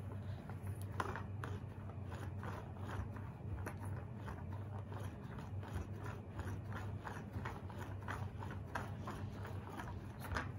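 Sticky lint roller rolled over a shaggy rug, crackling and clicking irregularly as its tape pulls at the fibres, over a low steady hum.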